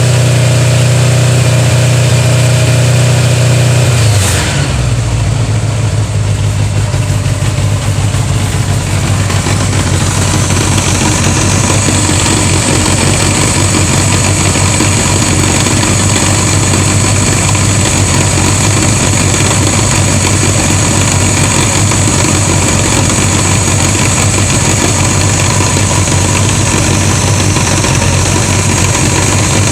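1981 Honda GL1100 Gold Wing's flat-four engine running; about four seconds in, its speed drops to a lower, steady idle.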